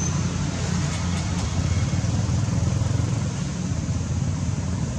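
An engine running steadily at idle, a constant low hum with no changes in speed.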